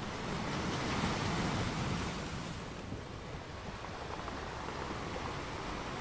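Small waves washing in over sand at the water's edge: a rushing wash that swells during the first two seconds, then eases into a steady hiss.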